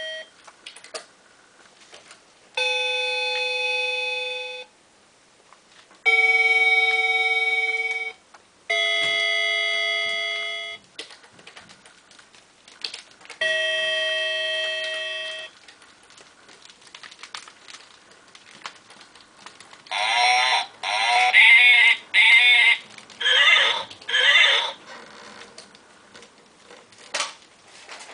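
Yiqu children's musical play mat giving out electronic sounds as its buttons are pressed: four steady electronic tones of about two seconds each, then a run of short warbling electronic sounds, with light clicks of the buttons in between.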